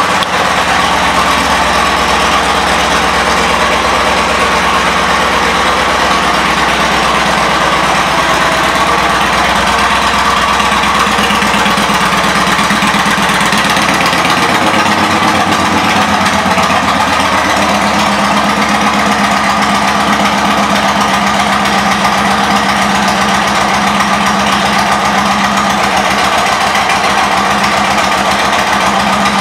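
2006 Yamaha Roadliner S's V-twin engine idling steadily through its aftermarket Cobra exhaust pipes: loud, even firing pulses.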